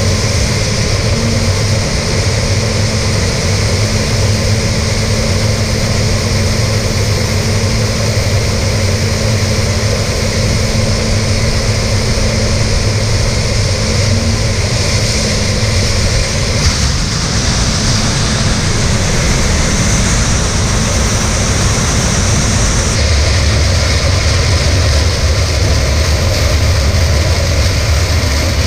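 Heavy harvest machinery running steadily under a constant diesel engine drone. About 23 s in the low hum grows louder.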